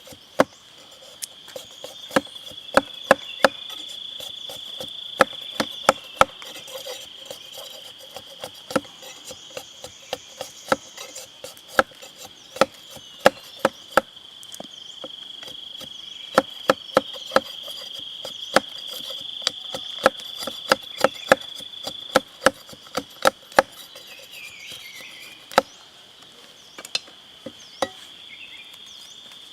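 Steady high-pitched insect chorus, with many irregular sharp knocks, sometimes in quick pairs, of the kind made by a blade chopping wood.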